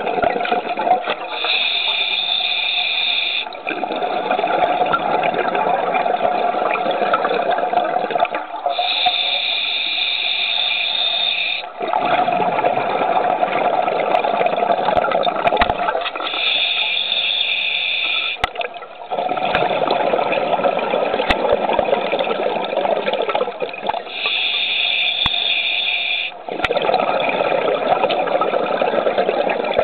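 Scuba diver breathing through an open-circuit regulator underwater: a high hiss of about two to three seconds on each inhale, then a longer rush of exhaled bubbles, in a steady rhythm of about four breaths.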